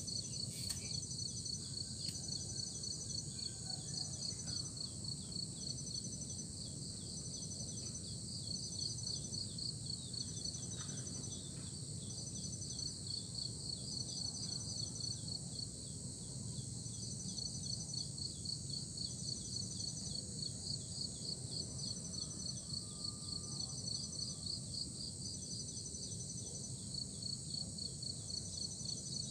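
Insects chirping in a steady high chorus: a rapid pulsing trill, and another call repeating in short notes about every second and a half, over low outdoor background noise.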